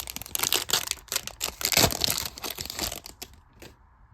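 Trading-card pack wrapper crinkling and tearing as it is ripped open: dense rustling for about three seconds, then a few faint clicks.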